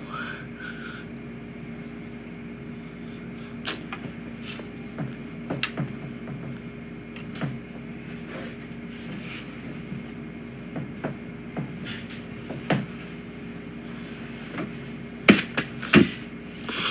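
Steady low electrical hum in a small room, broken by scattered light taps and knocks of a pen and hands on a laminated learning chart and table, the loudest few in a quick cluster near the end. A child's short vocal sound in the first second.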